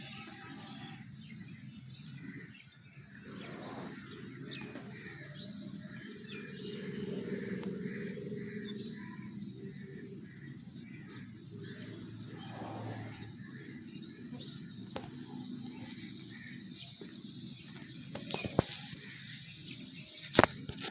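Outdoor ambience: short bird chirps every few seconds over steady low background noise, with two sharp knocks near the end.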